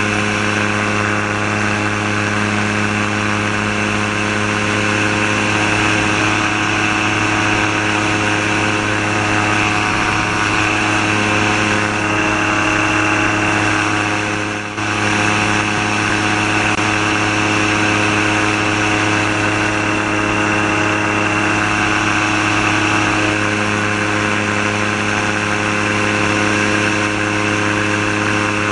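Gyrocopter's Subaru EA-81 flat-four engine running steadily at cruise, driving the propeller through a reduction gearbox, heard with wind noise from the open cockpit. The level dips briefly about halfway through.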